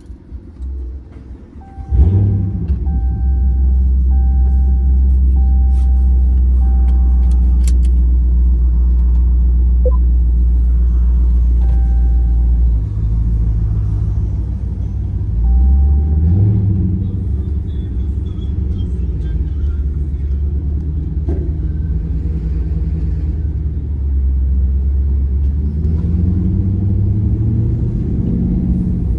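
Car engine starting with a loud burst about two seconds in, then a deep, loud exhaust rumble at idle, revving briefly about halfway and climbing again near the end. A dashboard warning chime dings several times in the first few seconds and twice more later.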